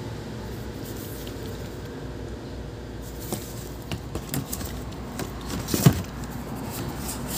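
Plastic fluid bottles knocking and clunking against each other in a cardboard box as a bottle is put back among them. There are a few light knocks from about three seconds in, the loudest just before six seconds, over a steady low hum.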